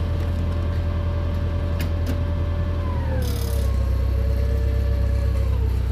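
Engine of a work lift running steadily with a low hum and a few light clicks. About halfway through, its pitch drops a step and settles lower.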